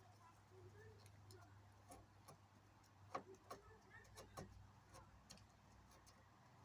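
Faint, irregular taps and clicks from hand work on the canoe hull: bark being pressed into holes with a caulking stick. The clearest taps come a little after three seconds in and again around four seconds.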